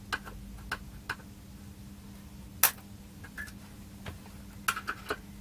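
Sharp clicks and taps of desoldering tools working a stuck IC free from a circuit board: a few scattered clicks, one loudest about two and a half seconds in and a quick cluster near the end, over a steady low hum.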